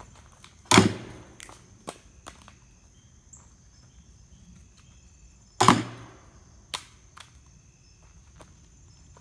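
Two gunshots about five seconds apart, each a sharp crack with a short decaying tail, followed by a few lighter clicks.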